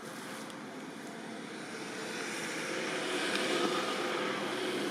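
Engine noise of a passing motor vehicle, growing louder about halfway through.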